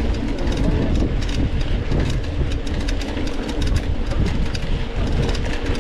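Mountain bike riding over rough dirt trail, picked up by a bike- or body-mounted onboard camera: a steady low rumble with constant quick rattling and clatter from the bike and the camera mount.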